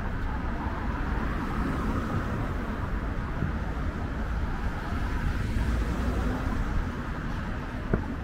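Steady city street traffic noise from cars driving along the road beside the sidewalk, with a constant low rumble. One short sharp tick near the end.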